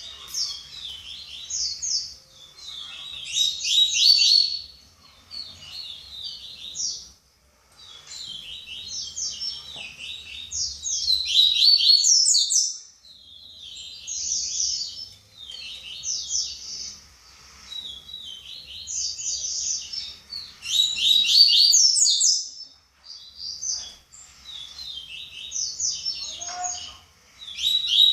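Papa-capim (yellow-bellied seedeater) singing in the 'baderna' style: fast, varied chattering phrases, repeated in bursts a few seconds long with short pauses between them.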